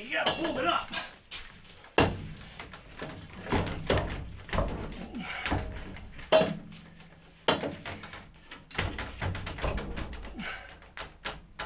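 Irregular knocks and clunks as a metal pipe roller is shifted and set against timber cribbing under a heavy machine being moved, with a louder knock about six seconds in.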